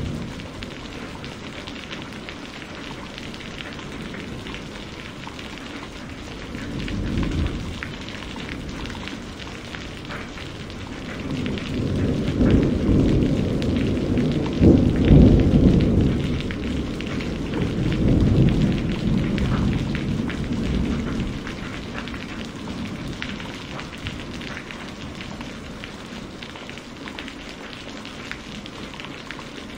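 Steady rain with rolling thunder: a short rumble about seven seconds in, then a longer, louder one that builds from about eleven seconds and dies away after about twenty.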